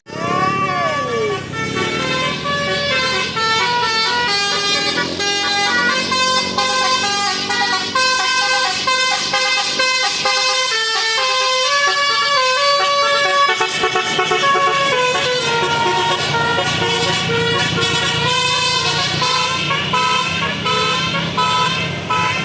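Bus 'telolet basuri' musical air horn playing a long tune, a quick run of stepped notes that changes pitch several times a second. It opens with a couple of swooping notes that rise and fall.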